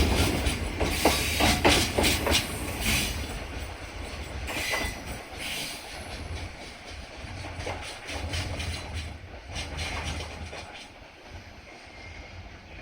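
A train running over rail joints, its wheels clacking in a quick uneven series over a low rumble in the first few seconds. The sound then fades steadily as the train moves away.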